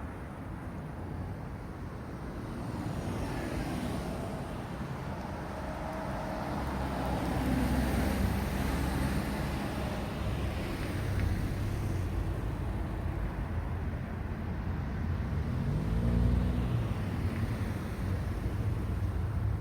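Road traffic: cars passing by, engine and tyre noise swelling about a third of the way in and again near the end, where one engine's pitch shifts as it goes past.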